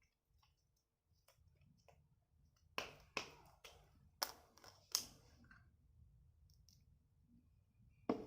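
A handful of sharp clicks and taps: four within about two seconds near the middle and one more near the end, with faint small ticks in between.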